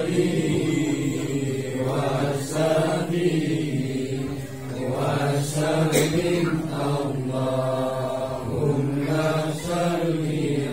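Group of men chanting Islamic tahlil prayers in unison, with long drawn-out phrases broken by brief pauses.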